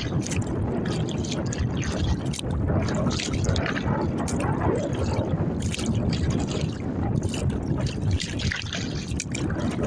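Water sloshing and splashing against a kayak's hull, with a steady low rumble of wind on the microphone.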